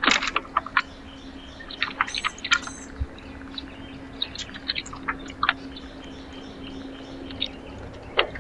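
Small birds at a backyard feeder giving short chirps and calls, with a cluster of high chirps about two seconds in, among many sharp clicks and taps. A steady low hum runs underneath.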